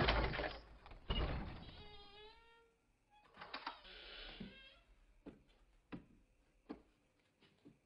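A metal key rattling and scraping in an old door lock that will not turn, with a short creak about two seconds in. A few separate sharp knocks follow.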